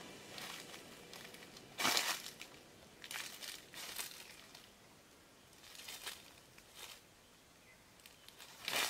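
Dry rustling and crinkling in a handful of short bursts, the loudest about two seconds in and another near the end.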